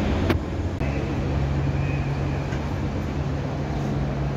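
A vehicle engine idling: a steady low rumble with a hum. A single sharp click comes right near the start.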